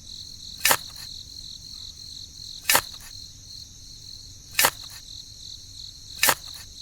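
Crickets trilling steadily in a high, even drone. Four sharp clicks come about two seconds apart.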